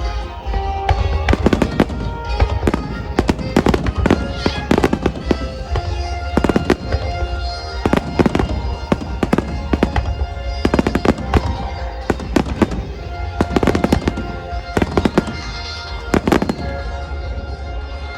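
Star mine fireworks display: rapid volleys of aerial shells bursting in quick succession, in clusters every second or two, with music playing underneath.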